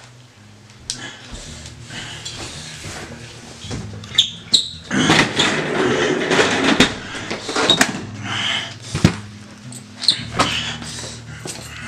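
Plastic toy guns being handled: a string of sharp clicks and knocks, with denser rustling and clatter for a couple of seconds in the middle.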